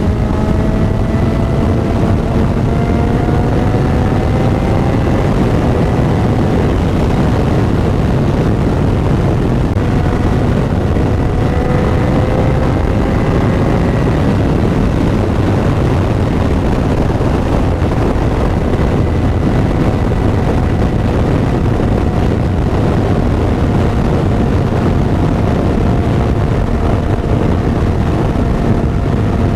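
2009 Yamaha FZ6R's inline-four with a Yoshimura slip-on exhaust, running at road speed under heavy wind rush. The engine note climbs slowly twice in the first half, then holds steady.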